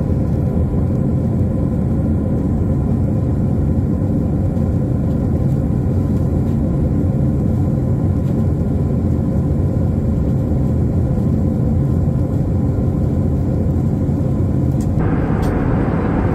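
Airbus A319 cabin noise heard from a window seat by the wing: the steady, even roar of the jet engines and airflow while climbing at low altitude after takeoff. About fifteen seconds in, the roar turns suddenly brighter and hissier.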